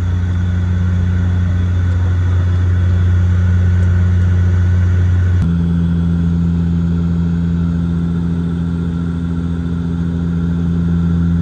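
Cabin drone of a De Havilland Dash 8 turboprop's engines and propellers in flight, a loud steady hum with a deep tone. About five seconds in, the drone changes abruptly to a different, steady pitch.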